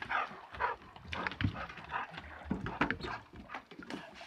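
A dog whining in short pitched cries, over irregular knocks and clanks as a heavy steel propane tank is handled between the boat and the dock.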